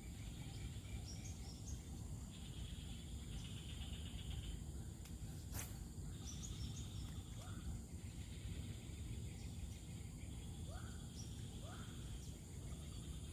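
Outdoor insects trilling in bouts of a second or two, with a few short rising chirps and a steady low rumble underneath. A single sharp click comes about five and a half seconds in.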